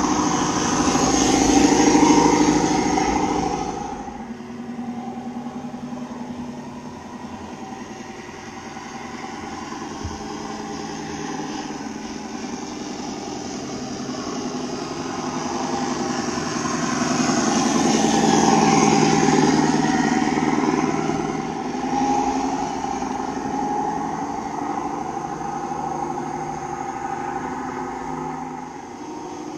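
Radio-controlled model Scania truck's engine sound module giving a simulated truck engine running. It is loudest as the truck passes close about two seconds in, then swells again around eighteen to twenty seconds.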